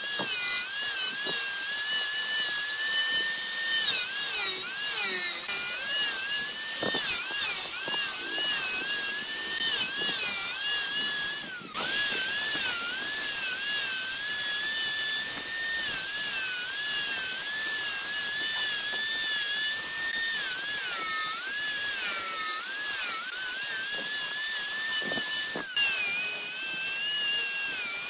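Angle grinder running at high speed against wood, a high-pitched whine that repeatedly dips and recovers in pitch as the disc bites and is eased off. The whine is briefly cut off twice, about 12 and 26 seconds in.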